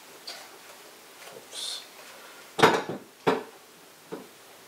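Explore Scientific AR102 refractor tube being set down into its metal tube rings: a few light clicks, then two sharp knocks less than a second apart just past halfway, and a softer knock near the end.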